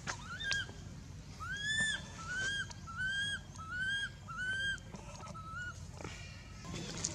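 Infant long-tailed macaque crying: a run of about six high, arching cries, each under half a second, the first the loudest.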